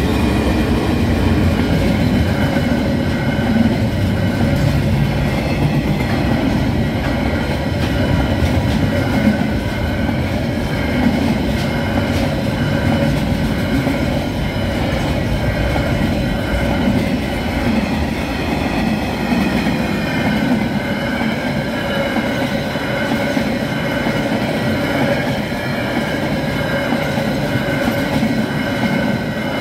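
Diesel-hauled KiwiRail freight train running past at a level crossing: the locomotive, then a long string of wagons rumbling and clattering over the rails, easing off slightly near the end as the last wagons go by. Steady high ringing from the crossing's warning bells runs underneath.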